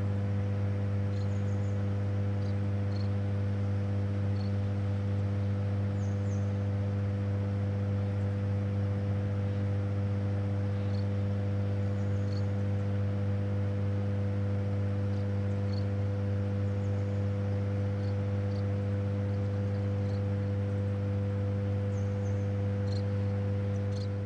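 Steady electrical hum of a hydroelectric power station, a deep constant tone with several evenly spaced higher overtones over a soft rushing background. Faint short high chirps come and go now and then.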